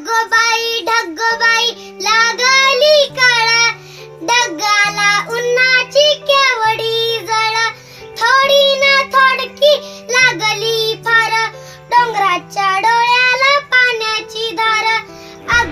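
A young girl singing a Marathi children's poem over backing music, with a low bass line that changes note every second or two.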